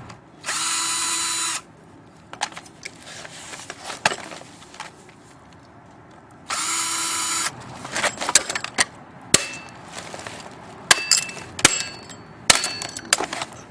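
Power drill driving an Allen bit in two bursts of about a second each, one just after the start and another about six and a half seconds in, backing out an Allen screw on a sump pump. In the second half come many short sharp metal clicks and knocks as the parts are handled.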